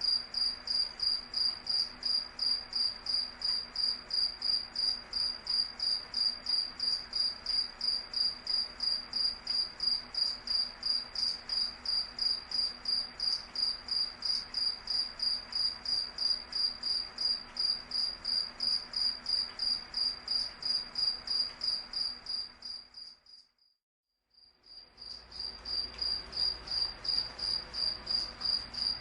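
A cricket chirping steadily, a high-pitched chirp repeated evenly about two to three times a second over a faint hiss. About three-quarters of the way through, the chirping fades out for a second or so, then fades back in.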